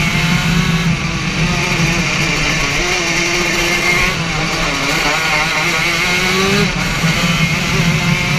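Racing kart engine heard onboard at speed, its pitch climbing as it revs out and dipping briefly about four seconds in and again near the end as the kart brakes for corners.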